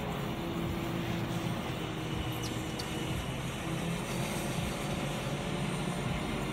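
Truck-mounted crane's engine running steadily as it hoists a sailboat in lifting slings.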